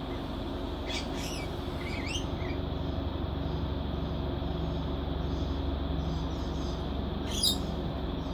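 Induction cooker running under load through a bifilar pancake coil, a steady electrical hum. Birds chirp several times between about one and two and a half seconds in, and once, louder, near the end.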